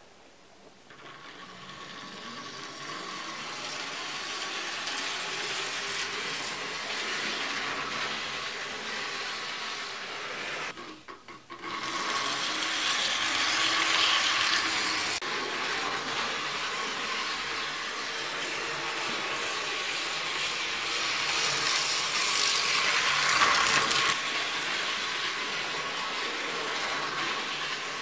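Märklin HO scale model locomotive running along the track with its wagons, its motor freshly fitted with new brushes: a steady electric motor whine over wheel and track rattle. It grows louder over the first few seconds, cuts out briefly about eleven seconds in, and is loudest a few seconds before the end.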